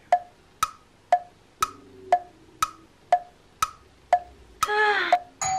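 A ticking-clock sound effect: hollow, wood-block-like ticks about twice a second, each with a short ringing note. Near the end a woman lets out a long, falling vocal groan of boredom.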